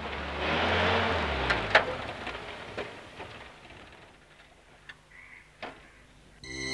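A vehicle engine running and dying away over the first few seconds, with a few sharp clicks, the loudest about a second and a half in. Then it is quiet until background music comes in near the end.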